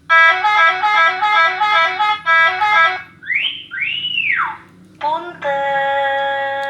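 Electronic novelty vehicle horn module (telolet-style) cycling through its tones: a quick alternating two-note melody for about three seconds, then a rising-and-falling whistle-like glide, then a steady held tone near the end.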